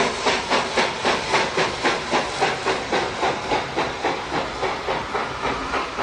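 Baldwin compound steam cog locomotive of the Manitou and Pike's Peak Railway working under steam, its exhaust chuffing with a hiss in a steady rhythm of about four beats a second, growing a little fainter near the end as it passes.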